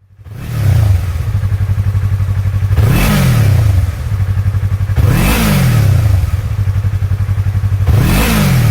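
Yamaha R3's parallel-twin engine idling through an Akrapovic carbon end can and blipped four times: a small rev early, then three quick revs about three, five and eight seconds in, each rising and dropping straight back to idle.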